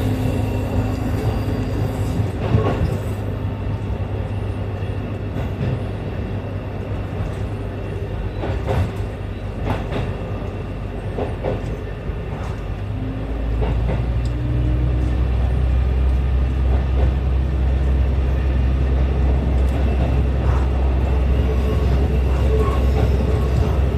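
Diesel railcar running along the track: a steady engine drone under wheel and rail noise, with a few sharp clicks from the track. About halfway through, the engine note drops lower and gets louder as the engine takes on more load.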